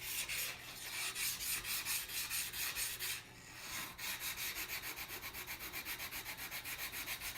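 High-carbon steel butcher's knife stroked back and forth on a coarse 200-grit (70 micron) water stone, a rhythmic gritty rasp of the stone cutting metal quickly. A short pause about three seconds in, then quicker, even strokes.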